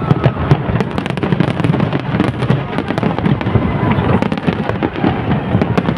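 A large fireworks display: a dense, continuous barrage of bangs and crackles over a low rumble.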